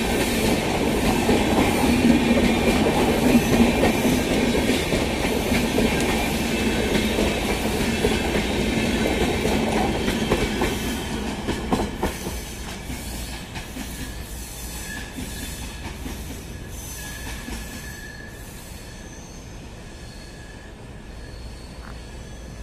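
LHB passenger coaches of an express train running through at speed, with steady wheel and rail noise. About twelve seconds in the last coach goes by with a few sharp clacks, and the sound then fades steadily as the train pulls away.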